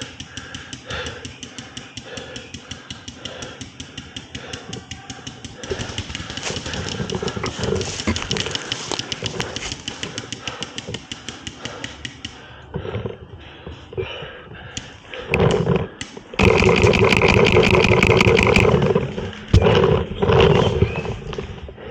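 A person breathing hard in quick, rapid breaths, out of breath. The breathing gets much louder and harsher about three quarters of the way through.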